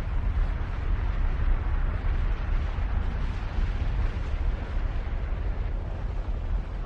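Steady low rumbling noise, heaviest in the deep bass, with no distinct bangs or breaks.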